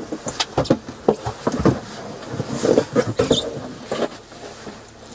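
Scuffling of a person struggling in a patrol car's back seat: clothing and bodies rustling and scraping against the seat, with knocks and short breathy grunts, dying down near the end.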